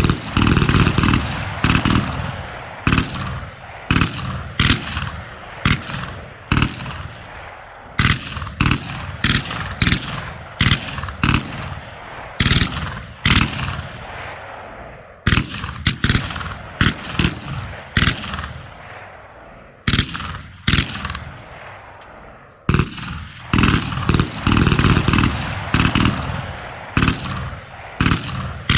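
Machine-gun fire: rapid bursts of automatic shots with scattered single shots between them, each followed by an echoing tail.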